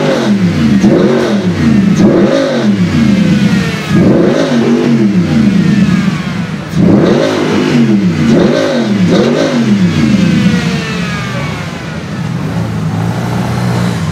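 Mercedes-Benz SLS AMG's 6.2-litre V8 with an Akrapovic exhaust, revved in quick blips: three runs of several sharp rises and falls in engine pitch, then settling to a steady idle for the last few seconds.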